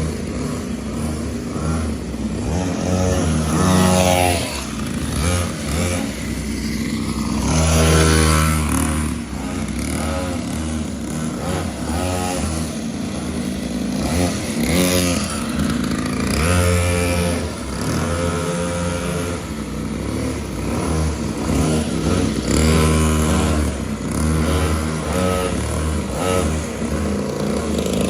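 Mini motorcycle engine running and being revved again and again, its pitch climbing and dropping in repeated swells every few seconds.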